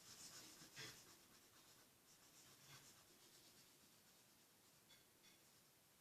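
Faint scratching of a felt-tip marker stroking across paper, the strokes thinning out after the first few seconds, with a couple of light ticks near the end.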